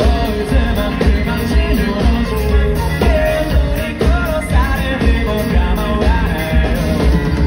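Live rock band playing with a male lead vocal sung over a steady drum beat and bass, as heard from the audience.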